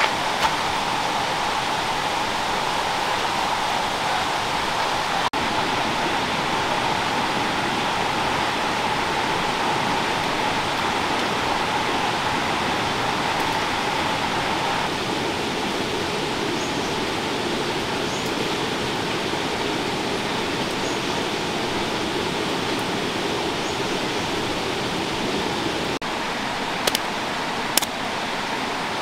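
A steady rushing noise whose tone drops about halfway through, with a few sharp clicks near the end.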